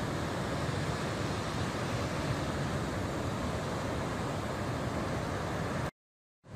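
Steady roar of ocean surf breaking on a beach, mixed with wind buffeting the microphone as a low rumble. The sound cuts out completely for about half a second near the end.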